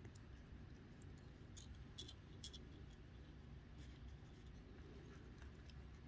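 Near silence with a low room hum, and a few faint clicks between about one and a half and two and a half seconds in as fly-tying thread is wrapped with a bobbin over foam on the hook.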